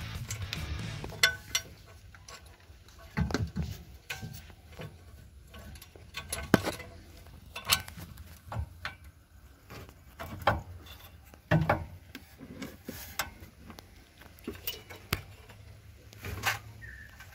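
Irregular metal clinks and knocks from the exhaust pipe and its flange being handled and fitted back against the engine's exhaust port, about a dozen sharp taps scattered unevenly.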